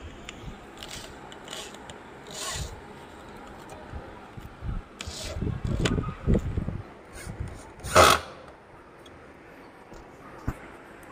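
Handheld electric drill boring into a wooden speaker cabinet in short spells, the bit rasping and scraping through the wood. One loud, short burst comes about eight seconds in.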